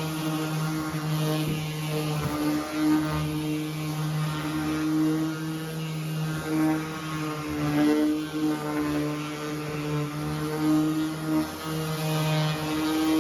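A motor running steadily: a constant hum that wavers slightly in pitch.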